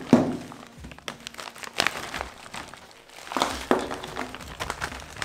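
Plastic military ration pouch crinkling as it is shaken out, with tins and wrapped food packets knocking onto a table. A sharp knock comes right at the start, more clatter and rustling follow in irregular bursts.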